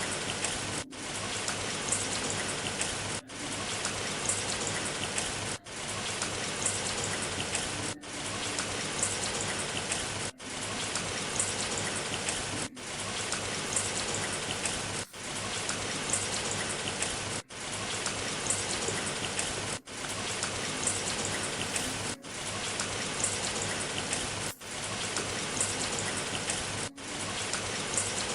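Steady rain falling, an even hiss of drops, cut by a brief dip about every two and a half seconds.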